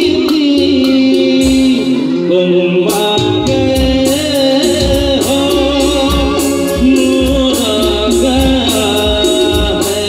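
Live band music through a PA: a male singer over electric guitar, bass, keyboard and percussion, with a steady beat. The drums drop out for about a second near two seconds in, then come back.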